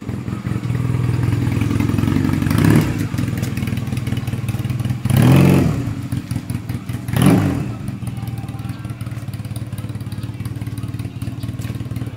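Honda Rebel 250 (CMX250C) motorcycle's parallel-twin engine idling, blipped three times, with the middle rev the longest.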